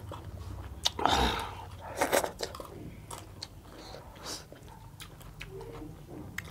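Close-up eating sounds: chewing and slurping hot chicken soup from a steel bowl, with louder noisy slurps about one and two seconds in.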